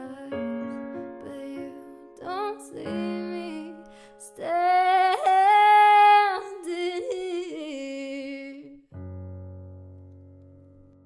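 A young woman singing to her own electronic keyboard accompaniment, with a long, loud held note in the middle. The voice stops near the end and the song closes on a final keyboard chord that rings and fades away.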